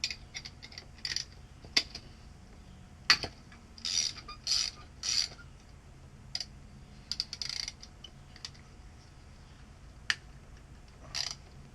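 Hand tools working on metal plumbing parts while the old leaking outdoor faucet is taken apart: irregular sharp clicks and knocks mixed with short scraping or ratcheting bursts. The loudest knocks come about two and three seconds in.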